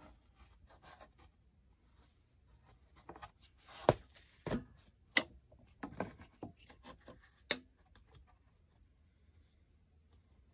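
Hands laying and shifting cut pieces of sheet material and a thin wooden strip on a mower seat base: faint rubbing and scattered sharp knocks, the loudest about four seconds in, followed by a short run of smaller knocks.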